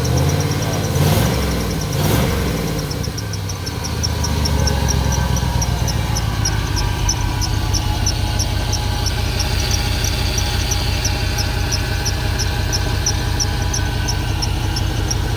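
Vehicle engine idling, revved up and back down a couple of times in the first few seconds, then running at a steady idle. A separate high, even ticking about three to four times a second runs alongside it.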